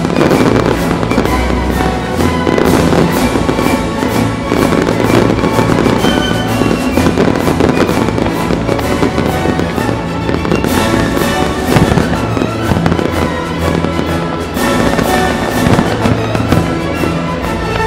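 Fireworks display going off in many rapid bangs, one after another, over loud music playing with the show.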